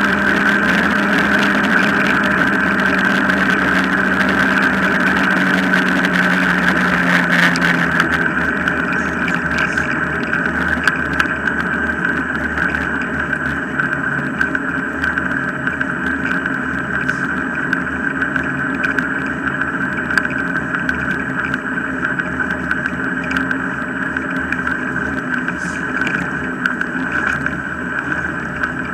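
Steady rolling drone of a dog-drawn rig's wheels on a tarmac path, with scattered light knocks. A lower hum drops away about eight seconds in.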